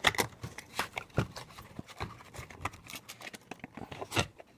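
Small cardboard parts boxes being handled and opened by hand: irregular taps, scrapes and rustles, with a louder knock about four seconds in.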